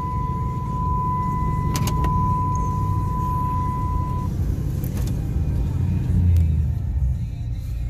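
Dodge Ram 2500's Hemi V8 with a Flowmaster exhaust running at idle after being started. A steady high electronic warning tone from the truck sounds over it for the first four seconds or so, then stops.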